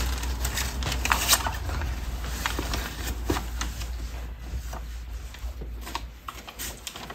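A clear plastic packaging bag and brown wrapping paper rustling and crinkling as a pair of jeans is pulled out and unfolded. The rustling is loudest in the first second or so, then softer, scattered crackles follow.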